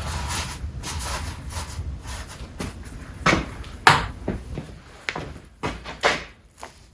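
Objects being handled: a couple of seconds of rustling, then five or so sharp knocks and clunks as things are picked up and set down.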